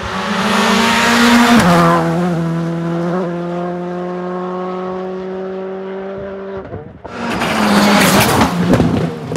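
Rally car passing at speed, its engine note dropping at a gear change about a second and a half in and then holding steady; after a sudden break about seven seconds in, another loud rally car pass follows.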